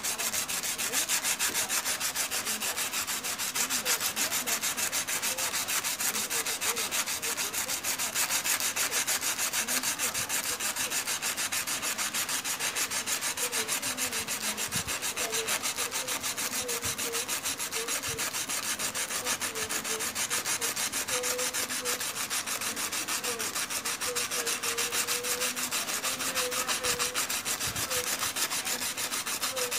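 Rough agate stone rubbed by hand on coarse 100-grit sandpaper, steady rapid back-and-forth scraping strokes. This is the first coarse grinding stage, flattening the top face of the stone.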